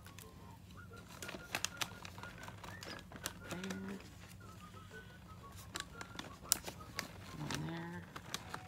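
Hands crafting on a tabletop: a glue stick rubbed and tapped on paper cut-outs and paper eyeballs pressed onto a paper bag, making many scattered sharp clicks and taps with light paper crinkling.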